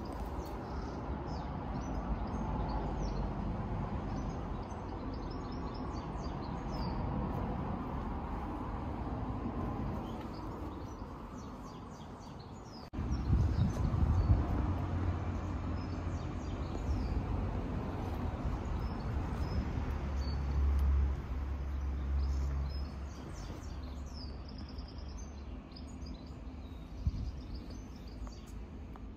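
Outdoor background: scattered short bird chirps over a steady low rumble. The rumble jumps louder about halfway through and stays uneven after that.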